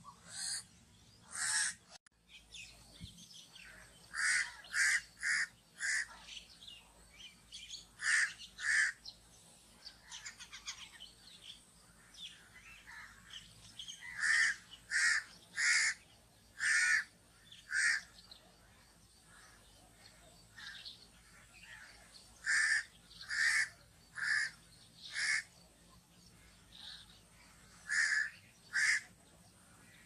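Crow cawing: short, harsh caws in bunches of two to five, with pauses of a few seconds between the bunches.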